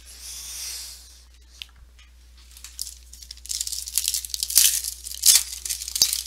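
Plastic wrapper of a trading-card pack being torn open and crinkled by hand: a brief hissing rip at the start, then a stretch of crackling tearing in the second half.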